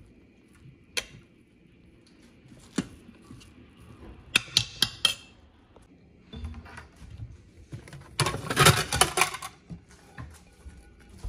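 Dishes and utensils clinking and knocking: a few single clinks, a quick cluster about four to five seconds in, then a longer, louder clatter about eight to nine and a half seconds in.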